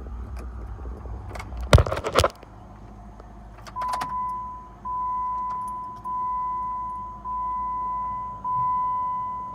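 A couple of loud clattering knocks, followed from about four seconds in by a 2012 Jeep Wrangler JK's electronic warning chime: a single mid-pitched bong repeated about once a second, each note fading out.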